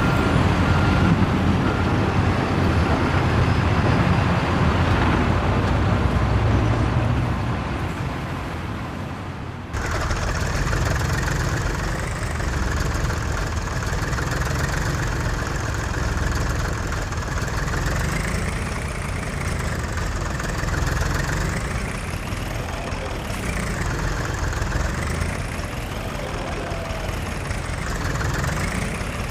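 Diesel engines of heavy machinery running and idling, with a sudden change in the sound about ten seconds in. In the second half a whine rises and falls over and over as the machines work.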